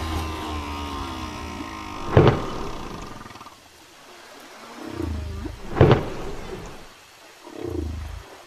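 Whale calls: long moans that glide in pitch, deep low grunts, and two short, sharp, loud pulses about two and six seconds in.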